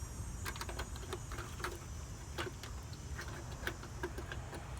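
Irregular small clicks and taps of metal parts and tools being handled while an air conditioner is taken apart, over a low steady background rumble.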